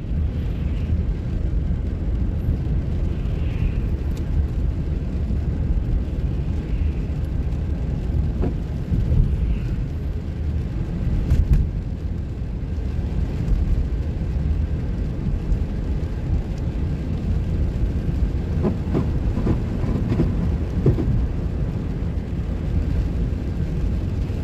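Car driving on a rain-wet road, heard from inside the cabin: a steady low rumble of tyres and engine, with occasional light clicks.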